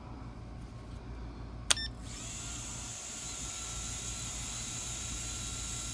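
A sharp click about a second and a half in, as a battery lead is plugged into an Emax TinyHawk 2 drone with a replacement flight-controller board. It is followed by a steady high hiss with a faint whine, and no start-up beeps: the board is dead on arrival.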